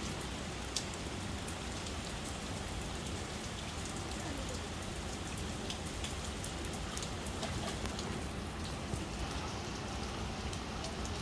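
Steady rain falling, with individual drops ticking sharply on a nearby surface now and then.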